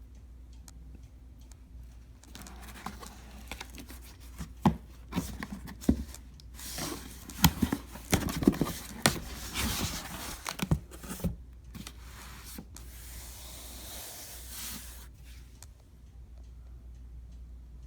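A shipping parcel being torn open and handled: tearing and crinkling of packaging with scattered knocks and clicks. The busiest, loudest stretch comes around the middle, then a steady stretch of tearing, and it quietens near the end.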